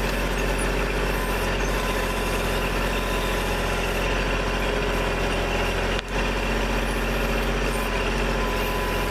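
Kubota backhoe's diesel engine running steadily, with a brief dip in level about six seconds in.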